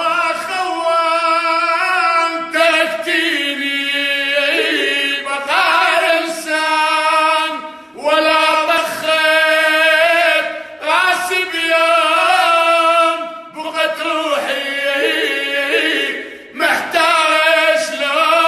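Arabic song: a singing voice drawing out long, wavering held notes in phrases, with brief breaks between the phrases.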